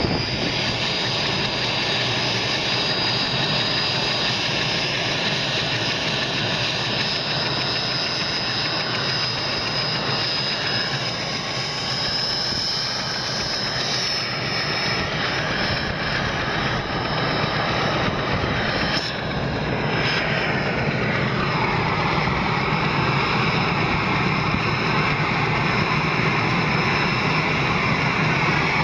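Aérospatiale AS-330 Puma helicopter's twin turboshaft engines and rotor running, with a steady high turbine whine over the rotor noise. About twenty seconds in a fuller rushing sound comes in and the sound swells a little as the helicopter begins to taxi.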